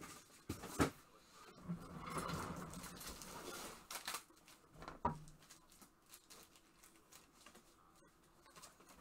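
Rustling and tapping of trading cards and plastic card sleeves being handled, with a sharp tap just under a second in and a couple of softer clicks around four and five seconds.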